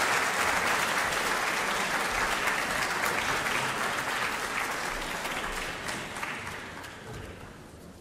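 Concert hall audience applauding steadily, the applause fading away over the last few seconds.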